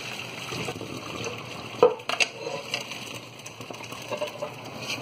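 Cooked macaroni and its cooking water being poured from a pot into a colander in the sink, the water splashing and draining. A sharp knock about two seconds in, followed by a few lighter clicks.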